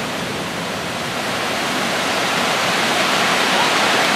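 Water rushing over and between rocks in a mountain stream, a steady rush that grows louder toward the end.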